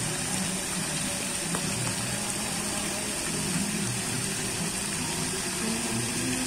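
Fountain water jets spraying up and falling back into the basin, a steady rushing splash.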